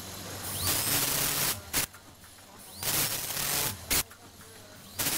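Vertical form-fill-seal packaging machine cycling. Each cycle is a loud hiss lasting just under a second, followed by a short sharp burst. It repeats roughly every two seconds over a steady low machine hum.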